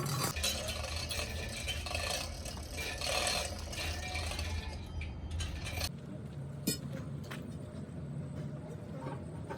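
Workshop noise: metal rattling and scraping over a low machine hum. About six seconds in the sound changes abruptly to a quieter hum, with one sharp click shortly after.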